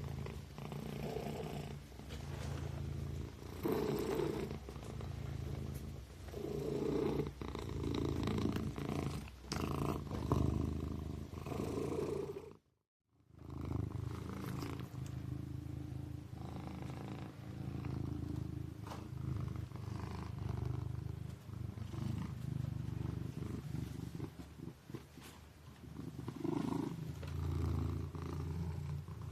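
Kitten purring steadily, a low rumble that swells and eases every few seconds. It cuts out completely for about half a second, roughly 13 seconds in.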